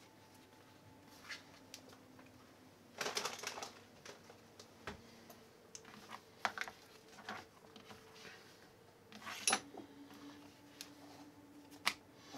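Scattered light taps, scuffs and rustles of leather pieces and a metal craft knife being handled and set down on a cutting mat, with a longer scuff about three seconds in and a few sharper clicks later on.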